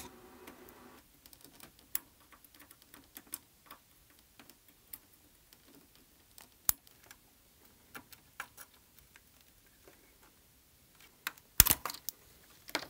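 Faint, irregular clicks and taps of desoldering tools working the solder joints of an IC on a circuit board, with a louder short clatter near the end.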